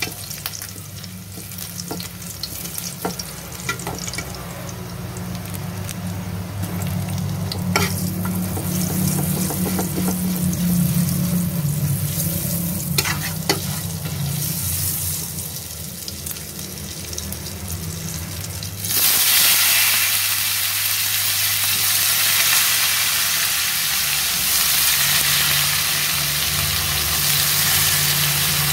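Garlic and shrimp paste frying in oil in a wok, with a metal spatula scraping and clicking against the pan. About two-thirds of the way through, wet eggplant slices go into the hot oil and a much louder, steady sizzle takes over. A low steady hum runs underneath.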